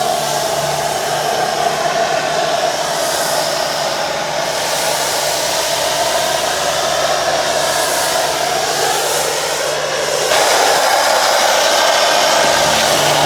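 A motor-driven cleaning machine, a pressure washer, air blower or vacuum, running with a steady loud rush over a low hum. The rush grows louder and fuller about ten seconds in.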